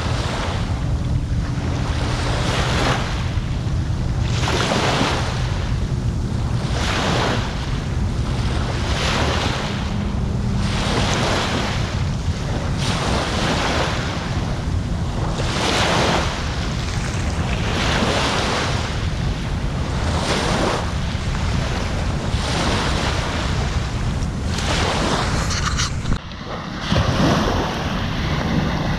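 Small waves breaking and washing on a beach, one swell of surf about every second or so, under a steady rumble of wind on the microphone. Near the end the sound drops out briefly and comes back duller.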